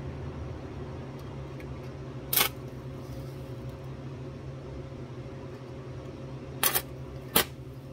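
Wire-feed welder striking brief arcs on a car's floor pan: three short, sharp bursts, one a couple of seconds in and two close together near the end, over a steady machine hum.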